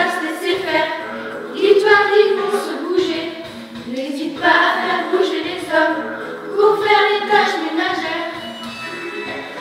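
A small group of girls singing together, in sung phrases separated by short breaths.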